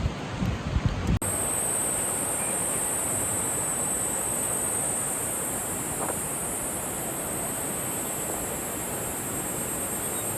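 Low gusty wind buffeting the microphone, then about a second in a sudden change to a steady outdoor hiss with a high, even buzz on top.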